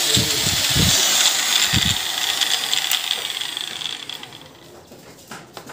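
Angle grinder motor running at full speed on its newly fitted switch, then switched off and winding down, fading out about four seconds in. A couple of low knocks sound in the first two seconds.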